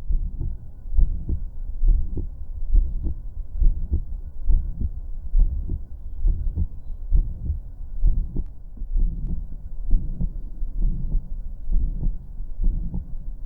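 A human heartbeat heard through a stethoscope: slow, not quite regular lub-dub beats about once a second, with a murmur between them, which the uploader tags as aortic regurgitation.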